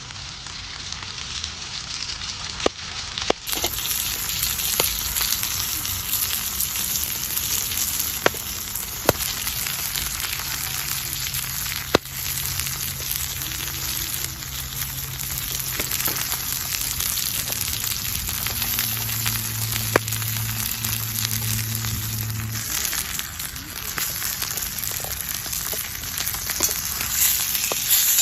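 Food sizzling on a barbecue grill: a steady hiss with scattered sharp pops.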